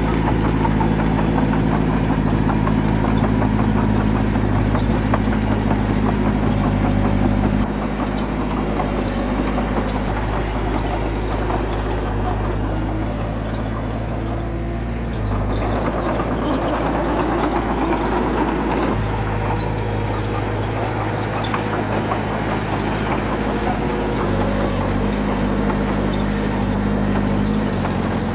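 Diesel engine of earthmoving machinery running steadily, its engine note changing pitch several times as it works. About halfway through a rougher, noisier sound rises over the engine for a few seconds.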